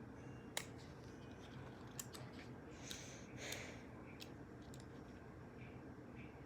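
Faint clicks and a short scraping rustle of small plastic parts being handled, as fingers try to work the pull-tab out of Vector's toy cube.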